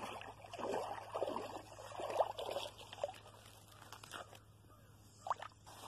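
Shallow water sloshing and dripping as a person wades and handles a wet cast net: a run of small irregular splashes that thins out after about three and a half seconds, with one more splash near the end.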